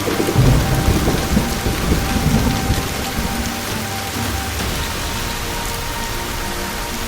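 Steady heavy rain with rumbling thunder in the first three seconds. Faint background music comes in after about five seconds.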